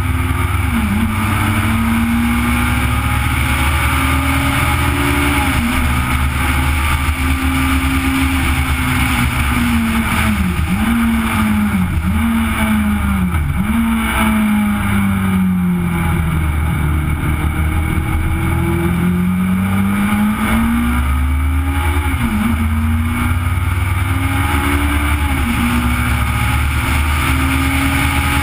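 Legend car's Yamaha four-cylinder motorcycle engine at racing speed, heard on board: the engine note climbs and drops sharply at each gear change, falls away for a few seconds about halfway through, then pulls back up through the gears.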